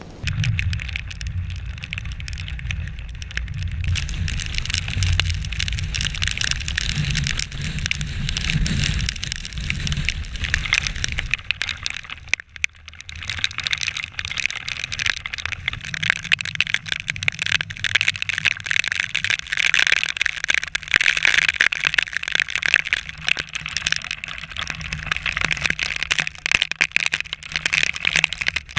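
Torrential rain pelting down in a dense patter that grows heavier and louder in the second half, with a low wind rumble on the microphone for roughly the first ten seconds.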